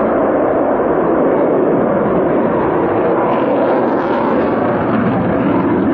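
Fighter jet flying by, a loud, steady roar of its jet engines that brightens a little about four seconds in.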